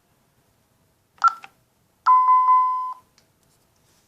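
ADT 6160 alarm keypad beeping: a single keypress beep, then about a second later three quick beeps running into a steady tone for about a second as the system arms in instant mode.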